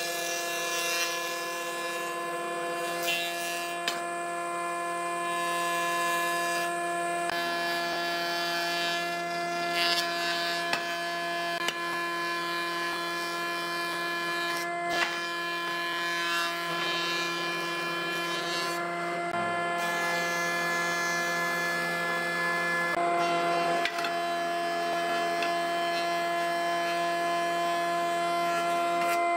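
Combination jointer-thickness planer running, boards being fed through its thicknesser: a steady machine whine over the hiss of the cutterhead shaving the wood.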